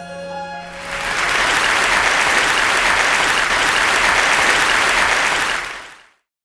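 Audience applauding a stage musical as the last held note of the music dies away; the clapping swells in about a second in and fades out quickly near the end.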